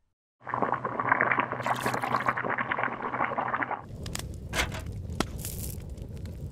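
A dense, gritty crackling noise for about three seconds, then, about four seconds in, the crackle and sharp pops of a charcoal grill fire over a low rumble.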